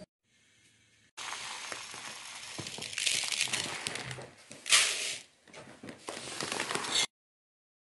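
Dry baldo rice being measured: uncooked grains pouring into a drinking glass and tipped out into a plastic colander bowl, a steady rattling hiss with louder rushes about three seconds in and again near five seconds. It starts about a second in and cuts off suddenly near the end.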